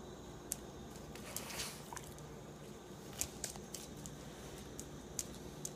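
Faint, scattered ticks, about ten over a few seconds, as an old Labrador moves about on a vinyl floor. A low, steady hum runs underneath.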